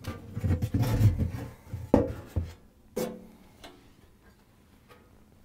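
Hollow plastic refrigerator evaporator cover panel being pulled out of the freezer compartment: rubbing and bumping against the plastic liner, then a few knocks that ring briefly. It goes quiet for the last second and a half.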